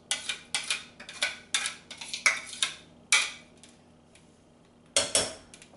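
Metal spoon scraping and knocking against the inside of a blender jar to get thick pepper sauce out, about three quick strokes a second, then a louder clatter about five seconds in.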